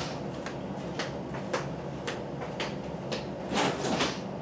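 Off-camera kitchen handling noises: a run of light knocks about twice a second, then a louder clunk near the end, like a door being opened.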